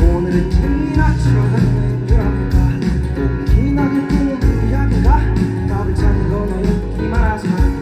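Live band music played through a concert sound system: an instrumental passage with bass, drums and electric guitar at a steady beat.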